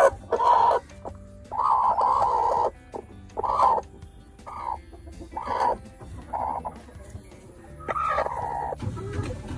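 Broody hen sitting on her eggs, clucking in a string of about seven short calls, with a longer drawn-out call about two seconds in and another near the end.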